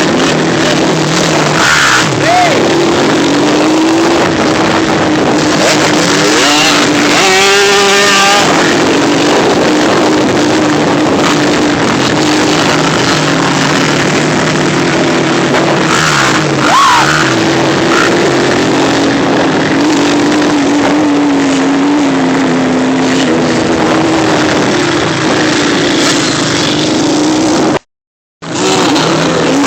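Off-road ATV or dirt bike engine running under way, its pitch wavering up and down with the throttle under a loud rushing noise. The sound cuts out for about a second near the end.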